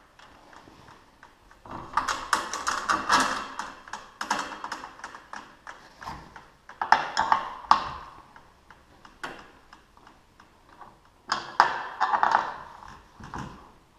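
Three bursts of rapid metallic clicking and clattering from hand tools being worked on the garage door opener's drive chain hardware, with a single click near the end.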